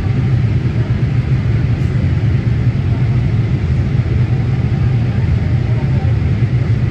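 Steady low rumble of airliner cabin noise in flight: engine and airflow noise heard inside the cabin at a window seat.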